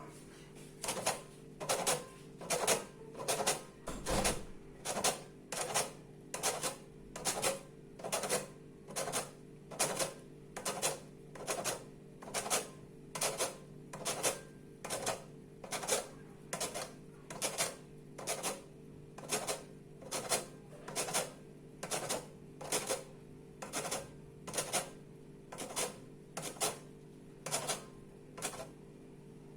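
Lemon peel being grated on a hand grater for zest: regular rasping strokes, a little more than one a second, over a steady low hum.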